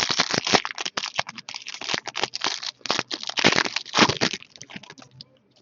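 Trading card packs and cards being handled: a rapid, irregular run of crinkling and rustling scrapes that thins out near the end.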